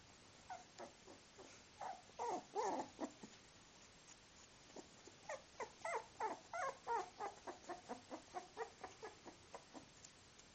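Miniature bull terrier puppies, 24 days old, whimpering and squeaking in short, high calls that slide down in pitch. A few calls come in the first three seconds, then a quick run of them from about five seconds in until near the end.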